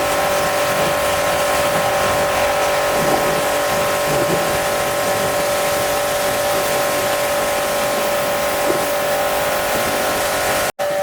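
Pressure washer running steadily: a constant motor-pump whine over the hiss of the water spray, breaking off for an instant near the end.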